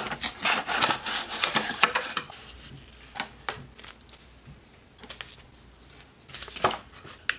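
Model-kit packaging being opened and handled: a cardboard box with a clear plastic window, then a small clear plastic bag crinkling. A quick run of rustles and clicks over the first two seconds, then scattered crinkles and taps.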